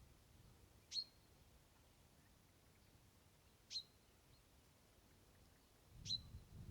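Three short, sharp bird calls, each a quick downward sweep, spaced two to three seconds apart over near-silence, with a low rumble coming up near the end.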